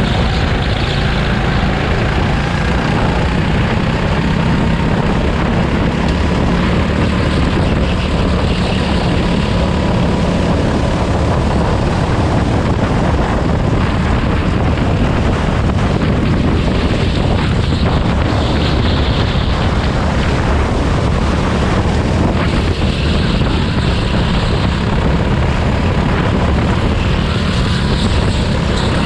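Go-kart engine running hard through a practice lap, heard from on board; its note drifts up and down a little over a loud steady roar of engine and air noise.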